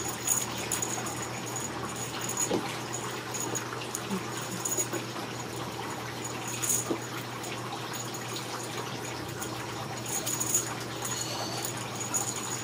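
Faint, irregular clicks and rustles of ragdoll kittens scampering and batting at a feather wand toy on carpet, over a steady hum and hiss.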